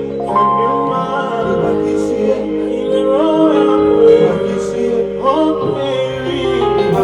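Music with held, gliding sung notes over sustained instrumental chords.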